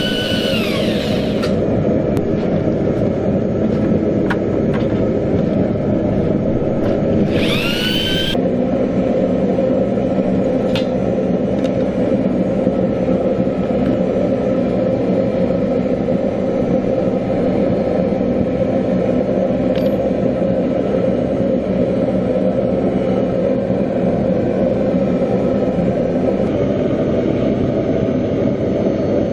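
Electric drill with a paddle mixer stirring a bucket of fine silica sand mix. Its whine falls away in the first second or so, then climbs again about seven seconds in and cuts off abruptly. A loud, steady rumble runs underneath throughout.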